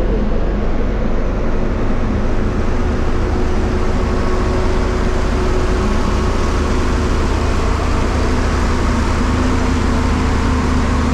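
Steady road traffic noise: a constant low rumble of passing vehicles, with a faint engine hum that comes and goes.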